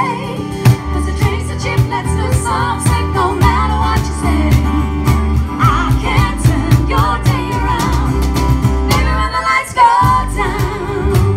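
A woman singing live with a small acoustic band: strummed acoustic guitar, upright double bass and a steady percussion beat.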